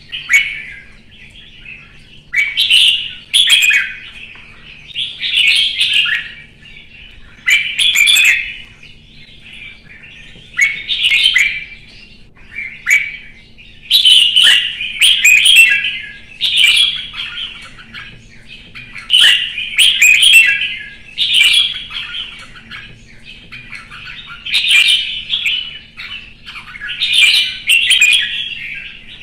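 Red-whiskered bulbul singing: about a dozen short song phrases, one every two to three seconds.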